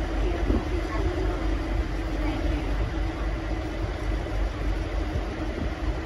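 V/Line N class diesel-electric locomotive's engine running with a steady low rumble as the train moves off slowly.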